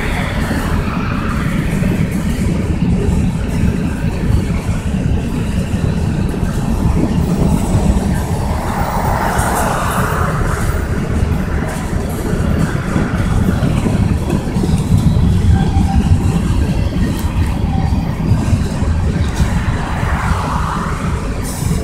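Kansas City Southern de México freight train's covered hopper cars rolling past: a steady, loud rumble of steel wheels on rail.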